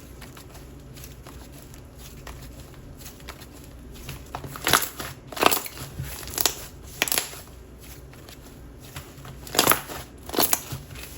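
Loose, soft DIY clay slime squished and worked by hand, making small sticky clicks and pops; the clicks come in louder clusters about halfway through and again near the end.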